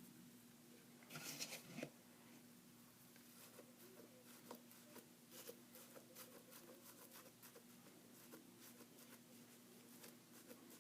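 Faint crackling and clicking of crunchy slime being squeezed and handled, with a louder rustling burst of crackles about a second in, over a faint steady hum.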